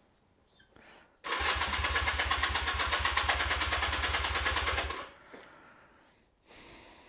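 Electric starter cranking a Honda CB250 motorcycle engine with the choke on, a fast even churning for nearly four seconds that stops abruptly without the engine catching. The owner takes it for a flooded engine.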